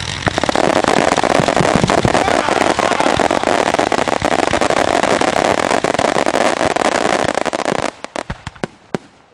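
Fireworks barrage: a dense, continuous run of rapid bangs and crackling that stops abruptly about eight seconds in, followed by a few scattered pops.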